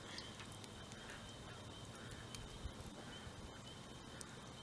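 Faint night ambience: a steady high insect trill over a low hiss, with a few faint ticks.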